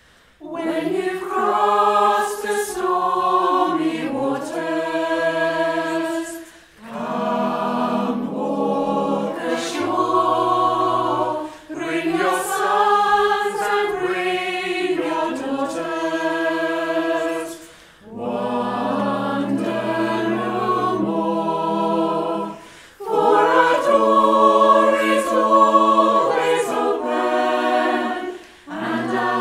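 Choir of mixed voices singing a slow song together in harmony, in phrases of about five seconds with short breath pauses between them. It is a virtual choir, mixed from singers recorded separately at home.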